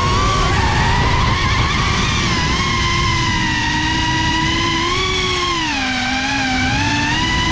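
Drone's electric motors and propellers whining, heard from the onboard camera. The pitch follows the throttle: rising sharply just at the start, dropping about six seconds in and climbing back near the end, over a steady low rushing noise.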